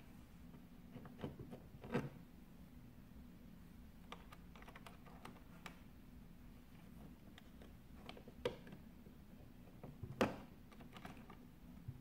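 Scattered small plastic clicks and taps of wire plug connectors and wiring being handled and pushed back onto the power board of a De'Longhi ESAM coffee machine during reassembly, with a few sharper clicks, the loudest near the end, over a faint low hum.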